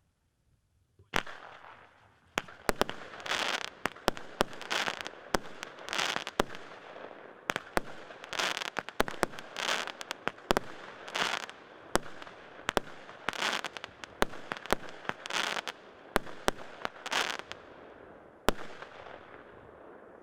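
A 23-shot, 1-inch firework cake with a fountain going off: a sharp bang about a second in, then a steady hiss from the fountain under a string of shots fired roughly one to two a second, each a launch and a loud burst. A last sharp bang comes near the end and the hiss fades away.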